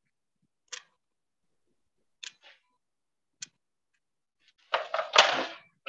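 Handling noise picked up by a video-call microphone: three short clicks or taps, then a louder rustling scrape near the end, with dead silence between as the call's noise suppression cuts in.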